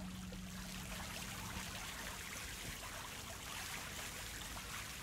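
Steady splashing and trickling of water from a garden fountain. The last note of a pedal harp dies away in the first second or two.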